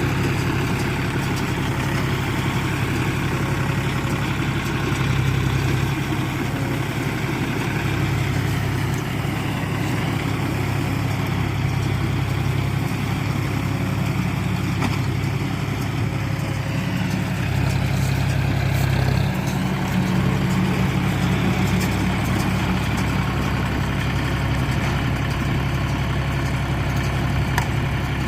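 Heavy engine of a paddy straw roller machine running steadily, its low note shifting with load a few times.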